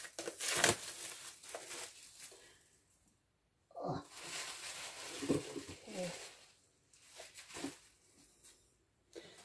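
Album packaging being torn and crinkled open by hand, in three spells with short pauses between.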